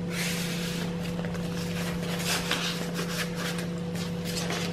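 Paper rustling in uneven swells as the stiff pages and tags of a handmade junk journal are handled and turned, over a steady low hum.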